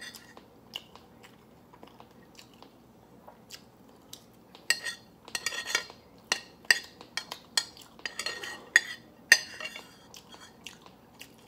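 Metal spoon scraping and clinking against a bowl in quick, irregular strokes, scooping up the last of the rice, with the busiest run of scrapes in the middle.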